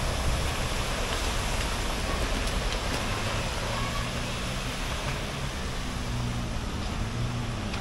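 Kenworth W900 heavy rotator tow truck's diesel engine running as it drives slowly across a wet lot, its low hum coming through more clearly about halfway through, under a steady hiss of rain and wet ground.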